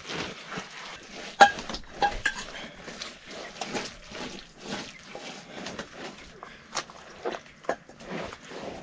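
Wet mud plaster being smeared by hand across an earthen floor: irregular slaps, scrapes and squelches. A few short squeaks come through, the loudest about a second and a half in.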